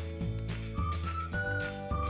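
Upbeat background music: a clear, high single-note melody stepping between notes over a bass line and a steady beat.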